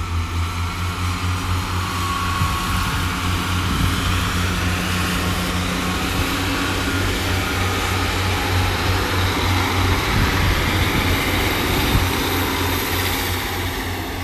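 Class 143 Pacer and Class 150 diesel multiple units pulling away and running past, a steady pulsing low diesel engine throb mixed with wheel-on-rail noise that swells through the middle and eases off near the end.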